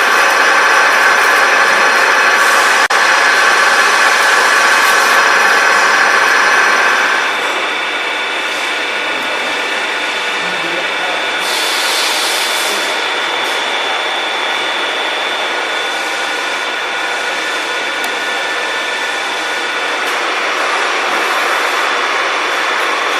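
KNUTH R50 radial drilling machine running with a steady whine of several fixed tones. About seven seconds in the sound drops and its tones change, and a brief hiss comes about twelve seconds in.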